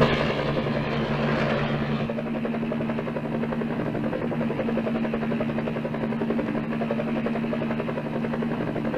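Bell 47 light piston-engined helicopter in flight: a steady engine drone with the fast, even chop of the rotor, brightest in the first couple of seconds and then holding level.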